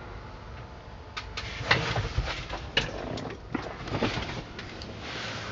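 Irregular knocks, clicks and rustling from handling and movement inside a truck cab, starting about a second in.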